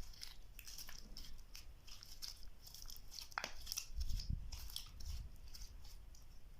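Slime being pressed and mixed by hand, giving irregular small clicks and crackles, with a soft low thump about four seconds in.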